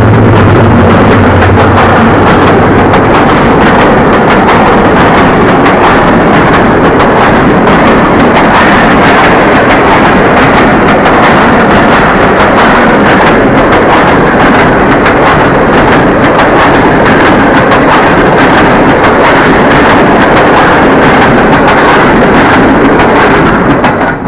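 Pakistan Railways passenger train passing at speed close by: a very loud, continuous rush and rattle of coaches and wheels on the rails, thick with fine clicking. The tail of the locomotive's horn dies away in the first second, and the noise falls off sharply at the very end as the last coach clears.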